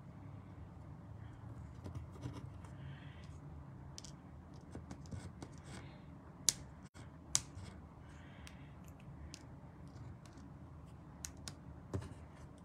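Small paper die-cuts being handled and laid on a cardstock card on a craft mat: light rustling with scattered small taps and clicks, two sharper clicks about a second apart midway.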